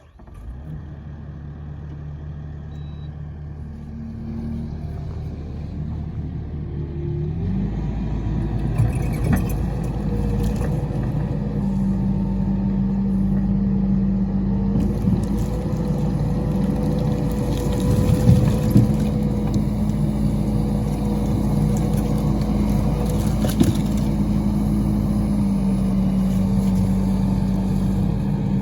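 A machine's engine running steadily. About seven seconds in it speeds up to a higher, louder note and holds there, with a few sharp knocks on top.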